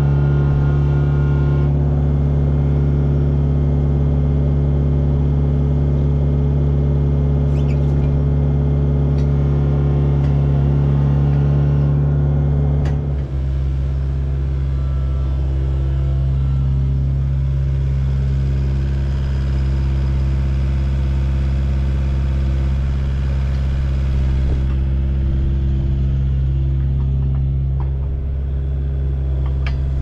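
Kubota mini excavator's diesel engine running steadily while its grapple lifts and swings logs. The engine note briefly drops in pitch a few times as the hydraulics are worked.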